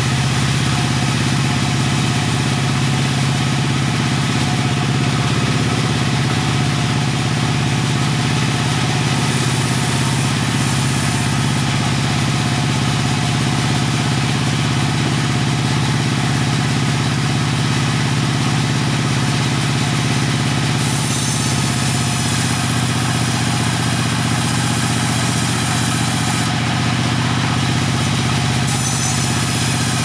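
Engine of a tractor-mounted sawmill running steadily at an even speed, with a constant low hum and no pauses.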